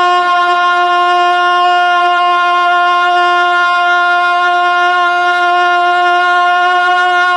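A male naat reciter holding one long sung note at a steady pitch on the last word of a line, sung into a microphone.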